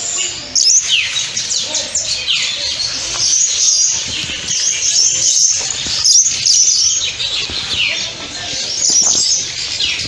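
Many birds chirping and calling at once: a dense chorus of short high chirps and quick downward-sweeping notes that keeps on without a break.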